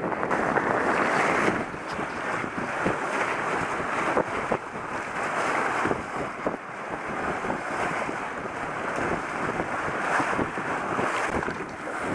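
Wind buffeting the microphone over water rushing and splashing along the hulls of an F-24 Corsair trimaran under sail.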